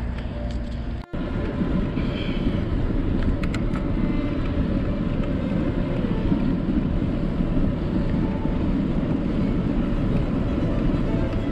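Steady rushing wind on a bicycle-mounted camera's microphone, mixed with tyre and road noise, as the bike rides along the road shoulder. The sound drops out for an instant about a second in, where the video is cut.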